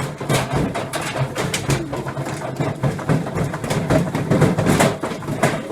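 Washing machine running a spin cycle while standing on a trampoline, its motor humming steadily under irregular knocking and rattling as it bounces on the mat.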